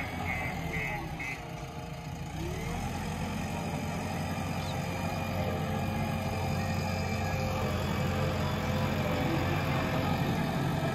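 JCB backhoe loader's diesel engine running steadily, growing somewhat louder after the first few seconds. A faint steady whine sits over the engine from about a third of the way in.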